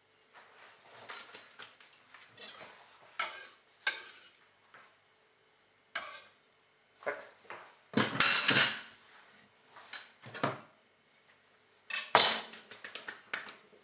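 Chef's knife scraping diced onion and garlic across a wooden cutting board into a small ceramic ramekin, with clicks and knocks of knife and bowl on the board. The loudest knocks come about eight seconds in and again near the end.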